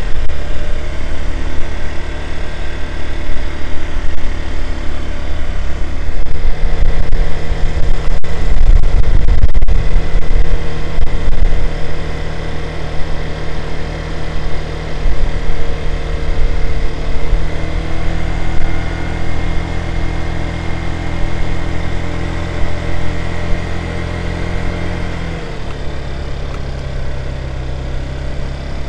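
Small motor scooter's engine running steadily at low road speed, with low rumbling noise from wind on the microphone about a third of the way in. The engine note drops in pitch and gets quieter near the end as the scooter eases off.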